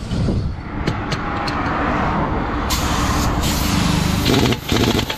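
Pneumatic impact wrench working the wheel nuts of a truck wheel during a puncture repair: a loud hiss of compressed air with fast hammering, starting about halfway in and stopping briefly near the end before starting again. Before it, a steady noise of roadside traffic.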